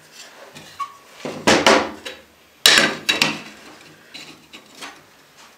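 A wooden folding rule being opened out and laid on a board: two short bursts of wooden clatter, about a second and a half in and again near three seconds, then a few lighter knocks.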